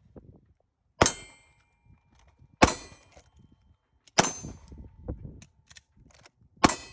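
Four pistol shots spaced about a second and a half apart, each followed by the brief ringing clang of a steel target being hit.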